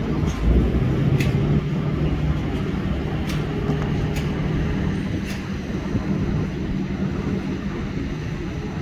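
Heavy diesel machinery running with a steady drone, with a few sharp knocks scattered through the first half.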